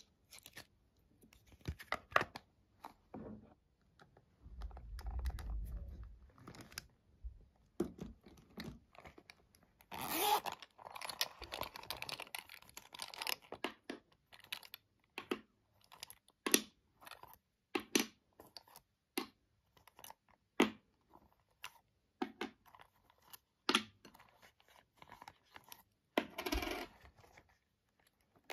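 Hands squishing and pressing slime mixed with soft clay pieces in a glass bowl, making a run of sticky clicks and squelches with denser stretches of squishing. Near the end, a zipper on a silicone pop-it pencil case is pulled open.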